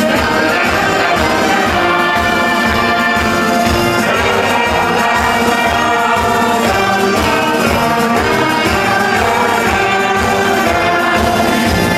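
Live party band playing an upbeat tune with a steady, regular beat, heard loud and continuous.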